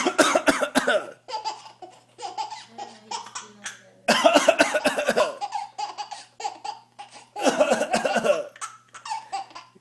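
An adult coughing in three loud bouts, at the start, about four seconds in and about seven and a half seconds in, with a young child laughing at the coughs in between.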